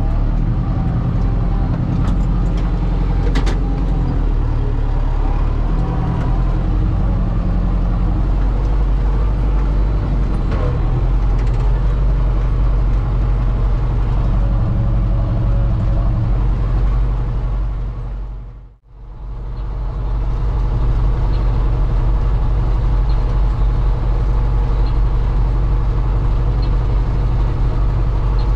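Kubota tractor engine running steadily, heard from inside the cab. The sound fades out briefly and comes straight back about two-thirds of the way through.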